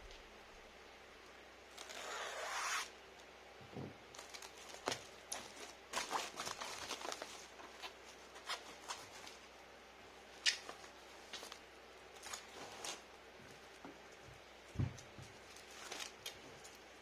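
Packing up a keyboard for shipping: a rip lasting about a second near the start, then scattered taps, clicks and rustles of packaging being handled.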